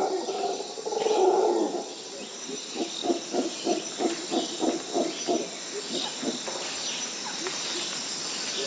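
Rainforest ambience of deep animal calls: a loud low call in the first second or so, then a run of about ten short, low, hoot-like pulses at roughly four a second that fade out, over a steady high insect drone.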